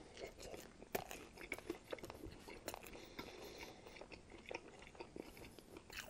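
Close-miked, quiet mouth sounds of a person biting into a soft bread sandwich and chewing it: many small wet clicks and smacks, the sharpest about a second in.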